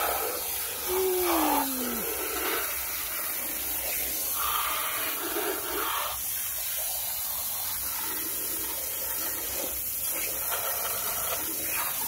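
Hand-held water spray gun hissing steadily as it jets water onto plastic toy cars, with a brief falling tone about a second in.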